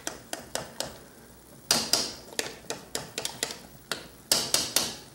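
A spoon stirring in a large stainless steel stockpot, knocking and scraping against the pot's wall in irregular clicks, with a few louder knocks.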